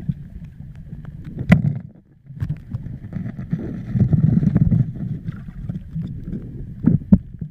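Muffled underwater noise of a diver moving in a river, heard through the camera's waterproof housing: a low rumble of moving water with a sharp knock about a second and a half in and two quick knocks near the end.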